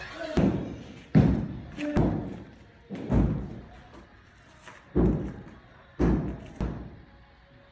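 A series of heavy thuds, about one a second, each dying away quickly, the last two close together near the end.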